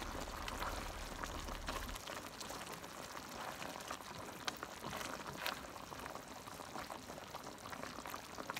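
Creamy coconut-milk chicken curry simmering in a nonstick pan, the thickening sauce bubbling with scattered small pops.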